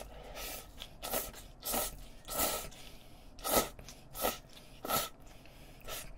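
Spicy mixed noodles (bibimmyeon) slurped up with chopsticks in a run of about seven short slurps.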